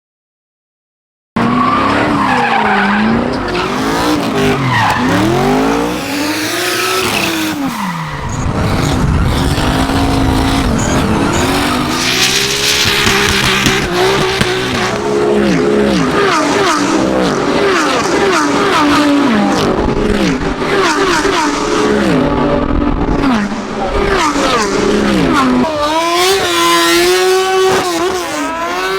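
Racing car engines revving hard, starting after a second or so of silence. The pitch climbs and drops again and again, and at times several engine notes overlap.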